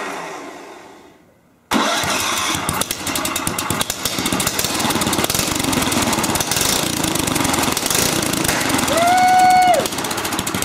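Rebuilt 10 hp Tecumseh single-cylinder small engine with a straight pipe, started on a test stand. It dies away in the first second or two, then catches again about two seconds in and keeps running with a loud, rapid straight-pipe exhaust note. The owner judges that the carburetor needs a tweak.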